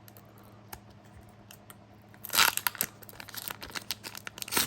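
Wrapper of a trading-card pack being torn open: quiet at first, then a loud rip about halfway through, lighter crinkling after it, and a sharp crackle near the end.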